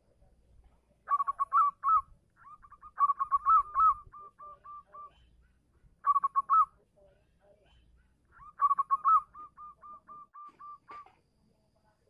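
Zebra dove (perkutut) singing: four phrases of rapid, staccato cooing notes. Each opens with a louder warbled burst and runs on into an even string of short repeated coos.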